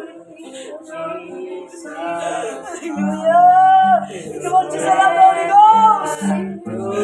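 Worship song: voices singing a slow melody over held low accompaniment notes, growing louder about halfway through.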